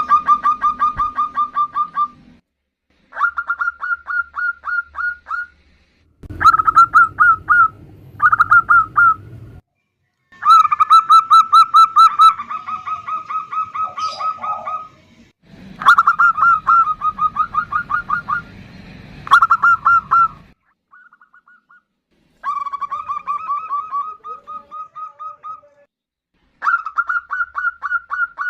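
Zebra doves calling back and forth: a female calling to a male. Each call is a rapid string of short, staccato coos, repeated in bouts of two to four seconds with short gaps, and now and then one bird overlaps another.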